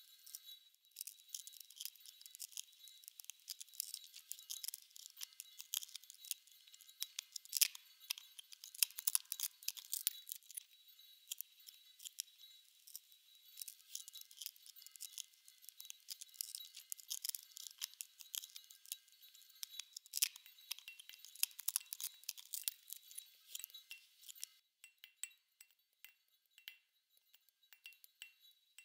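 Glass light bulbs used as resonating bodies in a multichannel sound installation give a dense, thin, high crackle of glassy clicks and tinkling over faint steady high tones. Near the end it thins out to sparse single clicks.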